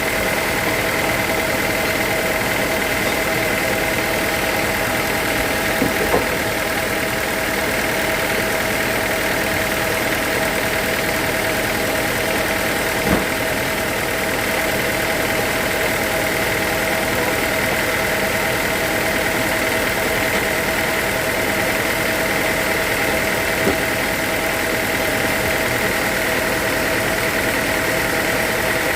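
Sawmill machinery running steadily with a constant whine, and a few brief sharp knocks about 6, 13 and 24 seconds in.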